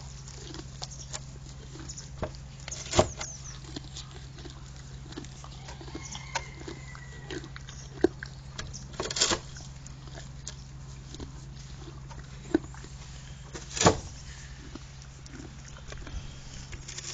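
Donkey gnawing on a wooden fence rail: its teeth scrape and crunch on the wood in small irregular clicks, with a few sharp, louder cracks.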